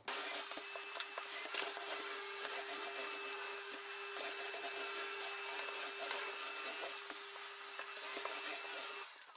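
Vacuum cleaner running steadily, a motor whine over its suction hiss, as it sweeps up shed cat fur from the floor and rug; it stops shortly before the end.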